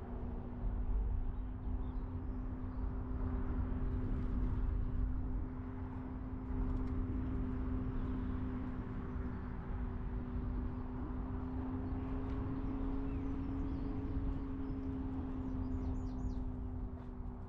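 A car driving at a steady pace, its engine and road noise giving a steady drone over a low rumble. A few bird chirps come in near the end.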